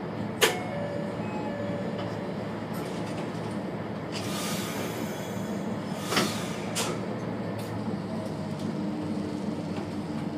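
Diesel railcar standing at the platform with its engine idling steadily. Sharp clunks come about half a second in and again around six and seven seconds in, with a short hiss of air between them.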